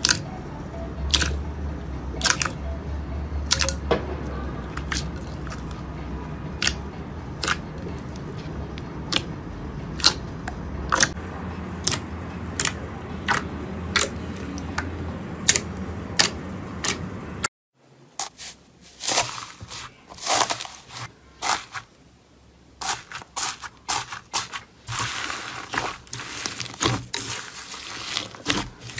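Slime being pressed and squeezed by hand, giving sharp clicking pops about one to two a second. After a cut about two-thirds of the way through, denser, irregular crackling follows.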